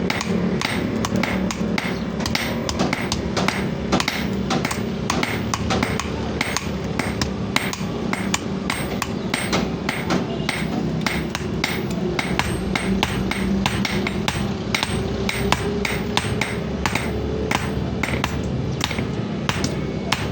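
Hammer striking steel on an anvil while forging a sickle blade: a long, fast, even run of sharp metallic blows over a steady background noise.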